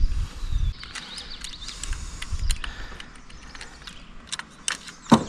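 Scattered metallic clicks and clinks of antenna mounting hardware being handled as a flat washer and nut are fitted, the sharpest click near the end, with patches of low rumble early on and about two seconds in.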